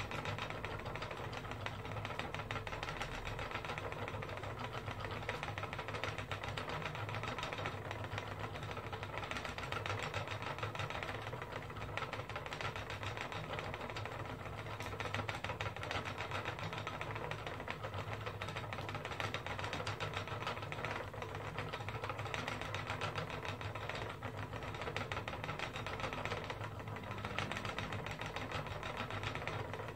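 Wooden spinning wheel running steadily as wool is spun: the wheel, flyer and bobbin whirring with a fast, even run of fine clicks.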